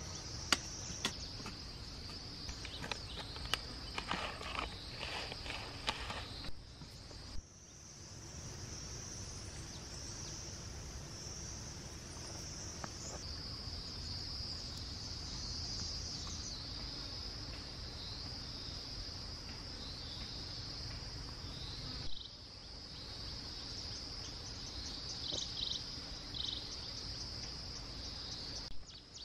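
A steady high-pitched chorus of insects chirping and trilling. A run of soft knocks sounds in the first six seconds.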